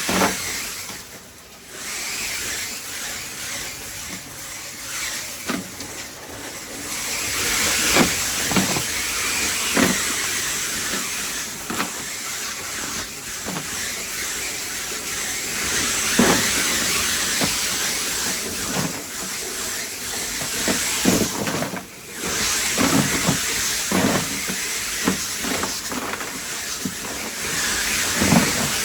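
Crushed ice being blown and poured into a fishing boat's fish hold: a steady, loud rushing hiss with scattered knocks of ice hitting. It drops away briefly about a second and a half in and again near 22 seconds.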